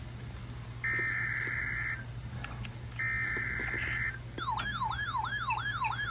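Emergency Alert System SAME header: two buzzy digital data bursts about a second long each, a second apart, announcing a new alert. Near the end a siren-like alert tone starts, wailing up and down about twice a second.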